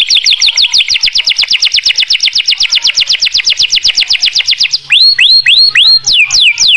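Domestic canary singing. A fast trill of rapidly repeated, downward-sliding whistled notes runs at about a dozen a second, then near five seconds in the song changes to slower swooping notes, a few per second.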